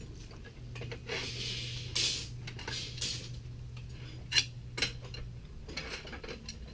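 Several sharp clinks and knocks at uneven intervals, the loudest about four seconds in, over a steady low hum that stops about five seconds in.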